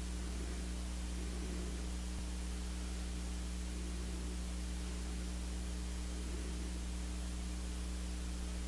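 Steady electrical mains hum with a constant background hiss.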